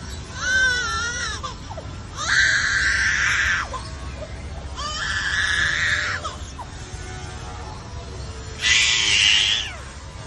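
Lyrebird mimicking a human baby crying: four separate wailing cries, each a second or so long, with a wavering pitch.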